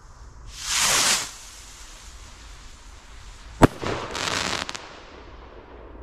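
Hellfires firework rocket launching with a short hiss that swells and fades. About two and a half seconds later comes one sharp, loud burst, followed by about a second of dense crackling from its crackling stars.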